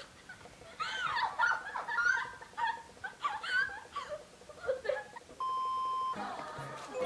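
Young women laughing and chattering, then about five seconds in a steady high test-tone beep, the kind played over TV colour bars, lasting under a second.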